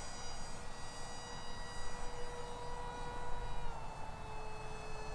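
Small coreless electric motor and 60 mm propeller of an Eachine Mini Wing Dragon RC plane whining in flight, a steady high buzz that drops slightly in pitch about three and a half seconds in.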